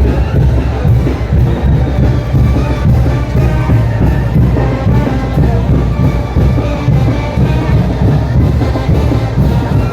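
Live Mexican brass band (banda) playing a son de chinelo: brass and drums playing loud and without a break.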